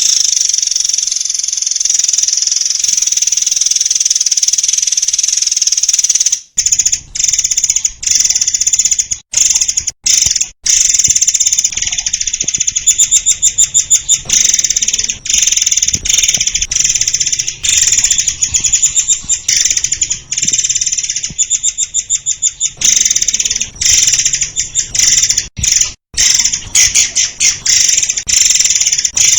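Murai air singing in long, rapid trills of high, closely spaced notes, broken by a few brief pauses between phrases.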